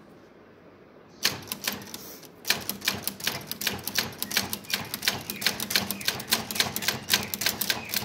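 Typewriter keys being struck in typing. A few clacks come about a second in, then a steady, quick run of clacks, several a second.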